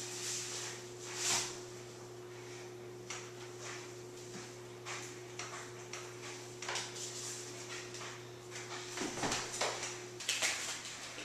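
Handling noise: rustling and light knocks of objects being moved about, over a steady low hum that cuts off near the end.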